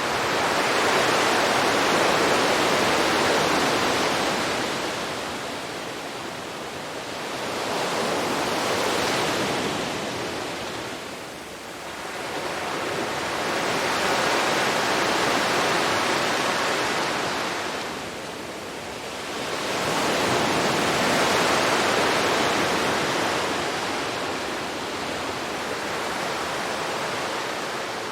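Ocean waves washing onto a shore, surging up and falling away four times, each surge about six seconds apart. The last wave trails off near the end.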